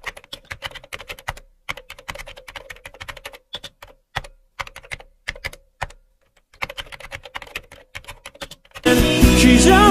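Rapid key clicks of typing on a computer keyboard, in irregular runs with a short pause about six seconds in. Music with singing comes back loudly near the end.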